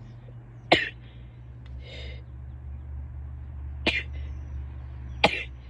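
A woman's short, sharp sneezes, three of them a second or more apart, with a breathy inhale between the first two. A steady low hum runs underneath.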